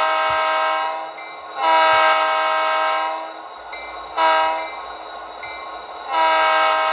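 Digital sound decoder (Tsunami 2) of an Athearn Genesis HO-scale GP40-2 model locomotive blowing its diesel air horn through the model's small speaker: the end of one long blast, another long blast, a short blast, then a long blast, the long-long-short-long grade-crossing signal.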